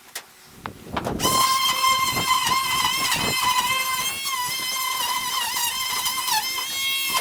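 Small electric power tool motor starting up about a second in after a few knocks, then running with a steady high whine, its pitch sagging briefly several times as it is pressed into the work.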